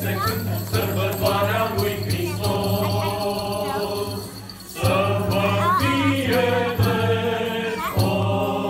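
A choir sings a Romanian Christmas carol (colind), with a brief pause a little past the middle before the singing picks up again.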